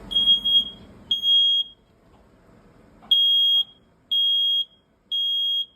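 Household smoke alarm going off, set off by cooking smoke: loud, high-pitched beeps about half a second long, two, then after a pause of about a second and a half, three more a second apart. This is the three-beep temporal pattern that signals smoke detected.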